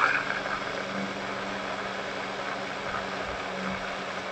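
Electric mini chopper running at a steady speed, blending a liquid marinade of lime juice, soy sauce, olive oil, honey, garlic and spices in its jar, with an even motor hum; it cuts off suddenly at the end.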